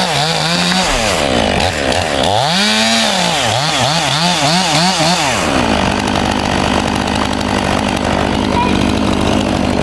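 Husqvarna 500i two-stroke chainsaw cutting through a pine log, its engine pitch rising and falling over and over as the throttle is worked. About six seconds in, it settles into a steady, even speed.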